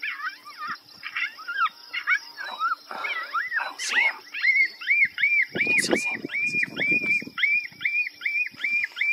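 Animal calls: at first a varied string of high chirps, then from about three seconds in a rapid, even series of high yelping notes, about three a second.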